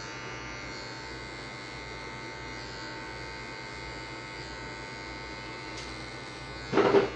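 Electric hair clipper buzzing steadily as it cuts over a comb held against the side of the head, the clipper-over-comb technique for blending a fade. A brief louder sound comes near the end.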